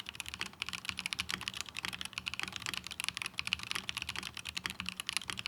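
Fast typing on a custom mechanical keyboard with Gateron Luciola linear switches and polycarbonate keycaps in an acrylic case: a dense, uneven patter of keystrokes.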